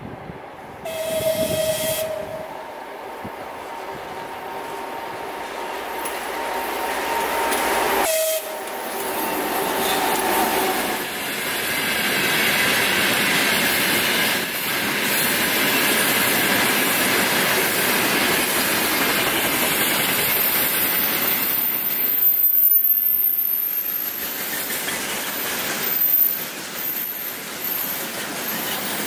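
2TE116U two-section diesel locomotive passing with its 5D49 diesel engines running, sounding a short horn blast about a second in. From about ten seconds in it gives way to the steady rolling noise of a long freight train of gondola wagons going past on the rails, loudest a little after the middle.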